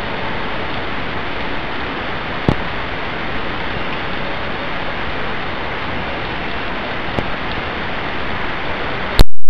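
Heavy rain falling steadily on a street and roofs, a constant hiss. Near the end a sudden, very loud crack of close thunder overloads the recording.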